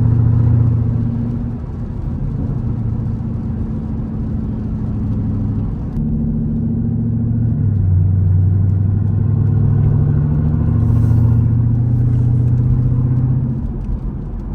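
Jeep Grand Cherokee SRT's V8 engine running steadily while driving, a low drone whose pitch steps a couple of times partway through as the engine speed changes.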